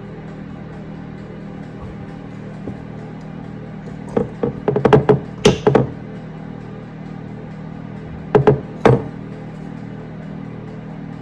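Sharp knocks and clatters of kitchen cookware being handled: a quick run about four to six seconds in, then two more near nine seconds, over a steady low appliance hum.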